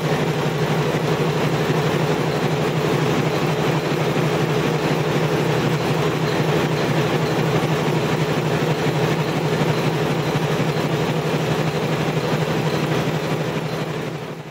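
A machine running steadily with a constant low hum, fading out at the end.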